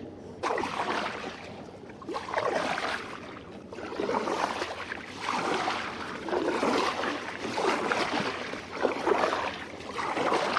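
Kayak paddle strokes splashing and swishing through the water, about seven strokes evenly spaced around a second and a half apart.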